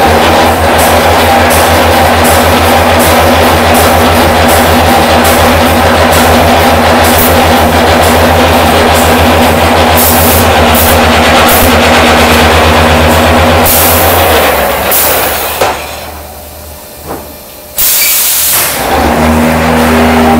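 Concrete block-making machine running through its moulding cycle: a loud, steady vibrating hum with rapid knocking and short bursts of hiss. Near the end it drops off for about two seconds, then starts up again with a burst of hiss.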